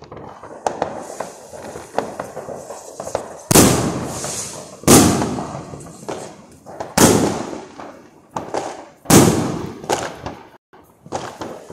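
Fireworks and firecrackers going off: four loud bangs about every two seconds, each trailing off in a long echo, among scattered smaller pops and crackles.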